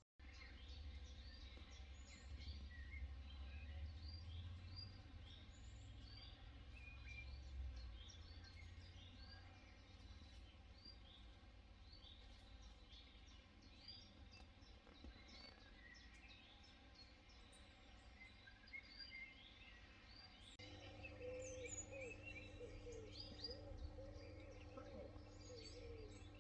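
Small birds chirping and singing over a low rumble of wind. About twenty seconds in, a low steady hum comes in under the birdsong.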